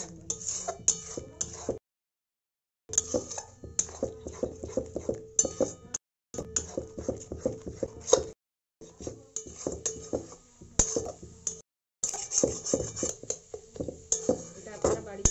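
Metal spatula scraping and clinking against a metal kadai as beaten eggs are stirred and scrambled into a frying masala, in rapid irregular strokes. The stirring is broken by four brief silences.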